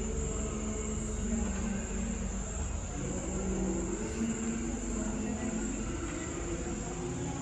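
Night insects, crickets or similar, trilling continuously on one high note, over a low steady hum.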